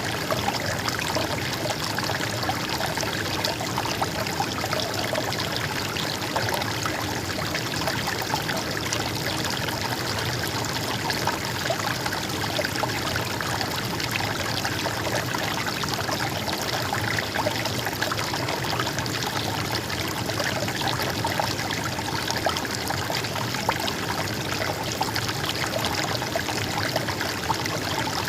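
A stream of water running and trickling steadily, with an even, unbroken babble.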